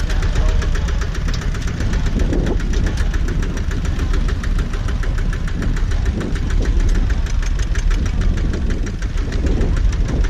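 Single-cylinder diesel engine of a two-wheel walking tractor chugging steadily under load, a rapid even knocking over a heavy low rumble, as it hauls a loaded trailer.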